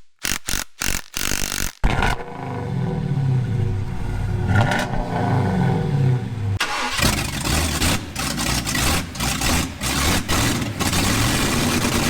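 Chevy C10's 383 stroker small-block V8 accelerating through the gears, its pitch rising and then dropping at each shift. After about six and a half seconds it runs under heavy wind and road noise. The first two seconds are a quick run of short, chopped-off bursts.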